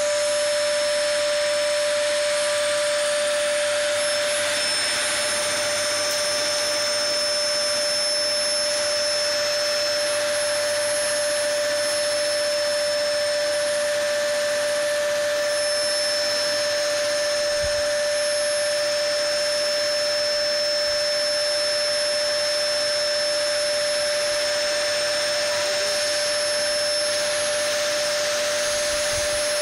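Canister vacuum cleaner running steadily: a constant rush of air with a steady motor whine over it.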